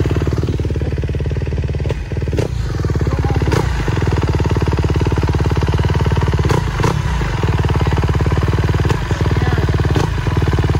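Motorcycle engine running at a steady speed without revving up or down, with a few sharp knocks and clatters scattered through it.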